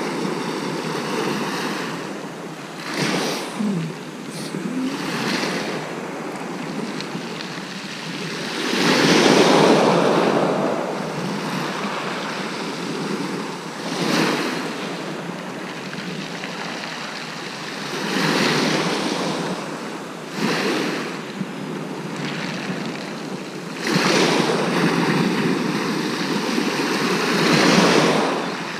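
Sea waves breaking on a shingle beach: steady surf that swells and falls back every several seconds, with a few louder breaks.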